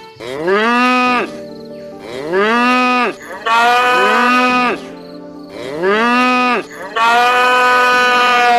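An animal calling five times, each call drawn out and rising then falling in pitch, the last one the longest.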